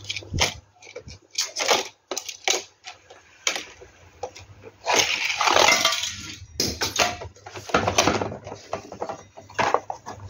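Plastic parts of a Mattel dinosaur toy track playset clicking and knocking as it is handled, with a louder, longer noisy stretch of about a second and a half around five seconds in.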